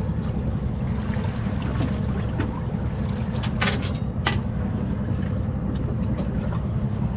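Fishing boat's engine running with a steady low rumble, and two short sharp clicks about three and a half and four seconds in.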